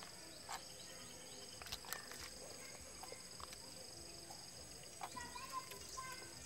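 Quiet rural outdoor background: a steady high-pitched hum, a few soft clicks, and a brief animal call about five seconds in.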